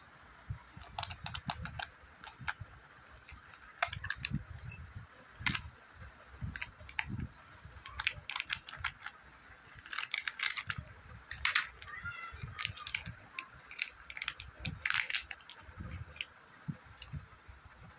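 Plastic chocolate-egg packaging being handled and opened: irregular crackles and sharp clicks of the thin plastic shell and toy capsule, with dull knocks against the table.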